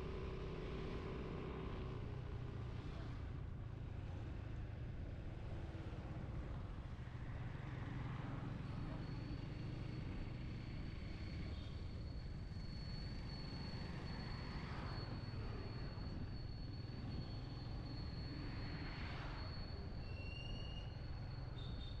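Motorcycle riding along a road: steady low engine and road rumble, with other vehicles swishing past a few times. A thin, steady high whine joins about a third of the way in.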